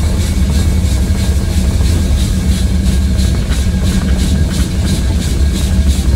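Mount Washington Cog Railway coal-fired steam locomotive working, with steam venting around its cylinders: rhythmic chuffing and hissing, about three beats a second, over a steady low rumble.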